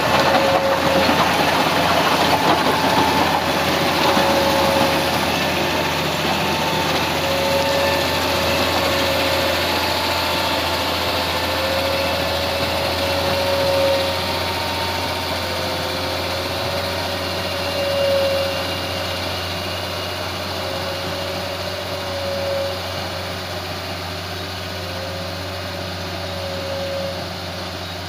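Komatsu motor grader's diesel engine running steadily with a wavering whine over it, growing slowly quieter as the grader moves off along the road. Gravel crunches under its blade in the first few seconds.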